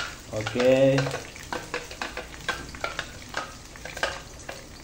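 Blended spice paste sizzling in hot oil in a frying pan, with a spatula scraping and tapping as the paste is pushed out of the blender jug, a few sharp clicks a second that stop about a second before the end.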